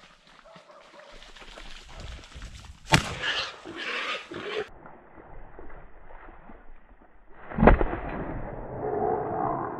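Two shotgun shots fired at a wild boar, about five seconds apart, each a single sharp blast. Rustling follows the first shot, and animal noise follows the second.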